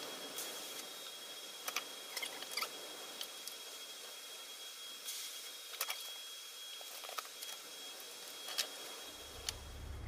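Quiet workshop room tone with a faint steady high whine and a few light clicks and knocks, as of small metal parts and tools being handled.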